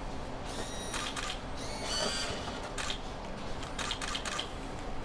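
A vending machine's bill acceptor drawing in paper banknotes, a short mechanical whir several times in a row as the notes are fed in one after another.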